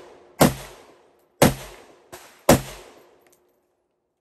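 Chinese Type 56 SKS semi-automatic rifle firing 7.62x39 rounds: three loud shots about a second apart, each with a short echoing tail, and a fainter crack between the second and third.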